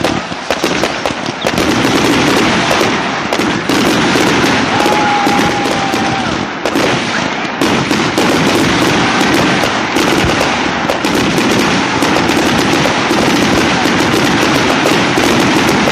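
Fireworks going off in a dense, continuous run of rapid crackling bangs, loud throughout, with a brief whistling tone about five seconds in.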